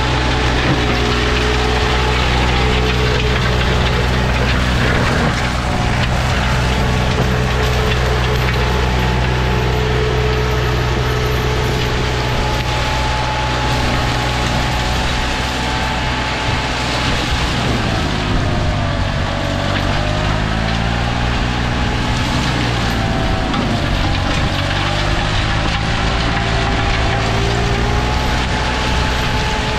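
Green Climber LV600 remote-controlled tracked mower's Kohler engine running steadily while its forestry mulching head shreds brush and branches. Between about 18 and 25 seconds in, the engine pitch sags and wavers as the head bites into heavier growth, then steadies again.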